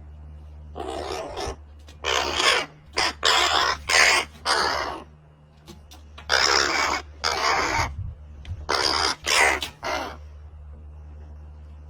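Repeated harsh, raspy animal calls: about nine short bursts, with a brief pause near the middle.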